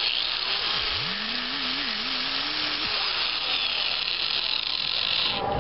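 Electric angle grinder with an abrasive disc grinding a forged iron piece clamped in a vise: a steady grinding hiss that stops near the end.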